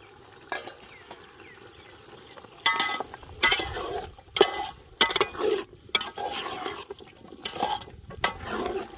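A long steel ladle stirs and turns chopped potatoes, carrots and green peas frying in oil in a large aluminium pot, scraping and clinking against the pot with each stroke. The strokes start about two and a half seconds in and come roughly once or twice a second.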